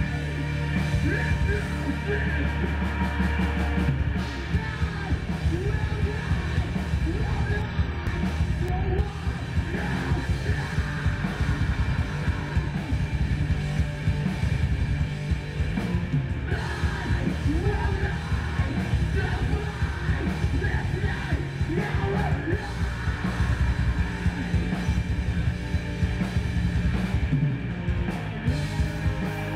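Rock music with yelled vocals, playing continuously at a steady level.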